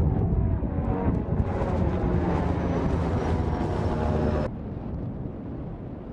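Propeller-driven military drone in flight overhead, its piston engine and propeller running with a steady pitched drone over a low rumble. About four and a half seconds in the sound drops abruptly to a quieter level.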